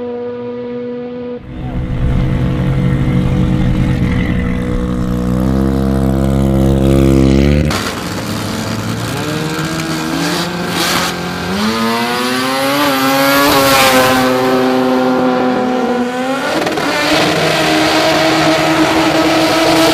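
Rotary-engined drag race cars running loud at high revs, in several clips cut together. About halfway through the revs climb in steps, and near the end one engine holds at high revs through a smoky tyre burnout.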